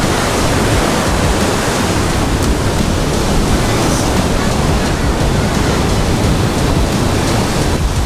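Ocean surf breaking and washing around the shore in a steady rush, with strong wind buffeting the microphone.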